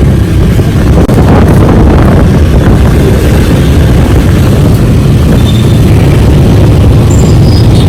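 Wind buffeting the microphone of a moving Honda Click 125i motor scooter, a loud, steady rush heavy in the low end, with the scooter and road noise underneath.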